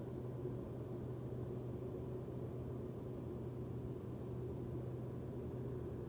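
Propeller aircraft engine droning steadily in cruise, heard from inside the cabin: an even low hum with a fainter steady whine over it.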